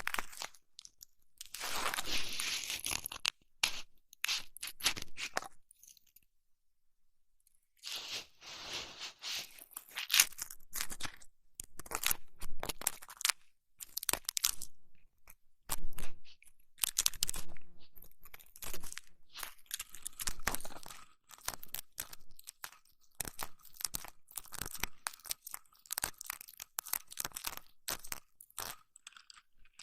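ASMR ear massage: crunchy, crackling rubbing and scratching right against the microphone's ears, in irregular strokes, with a pause of about two seconds some six seconds in.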